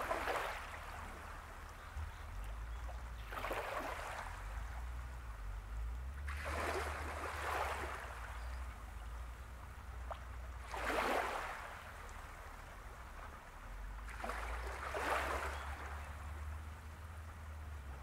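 Small waves lapping and washing at the shoreline, a soft swell of splashing hiss about every three and a half to four seconds, five times, over a steady low rumble.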